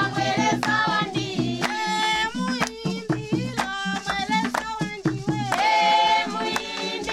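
Song: voices singing a held, bending melody over a steady rhythmic beat, the beat dropping back through the middle before it returns.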